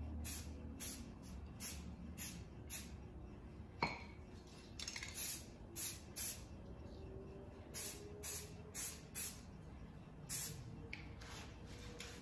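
Aerosol camouflage spray paint hissing out of the can in short bursts, one after another at roughly two a second, as a freehand camo pattern is dabbed on. A single knock falls about four seconds in.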